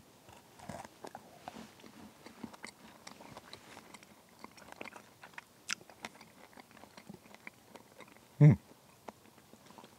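A person chewing a bite of a hard keto meal-replacement bar: faint, irregular crunching and mouth clicks. There is a short hum in the throat about eight and a half seconds in.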